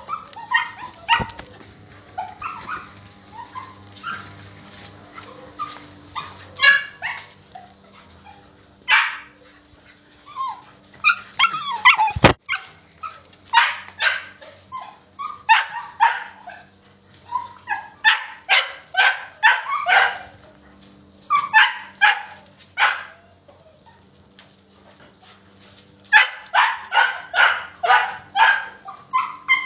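A litter of puppies barking and yipping excitedly in bursts while they play, with quieter stretches between and a fast run of barks near the end. A single sharp knock about twelve seconds in.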